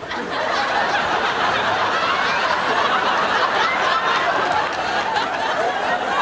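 Studio audience laughing steadily, many voices at once.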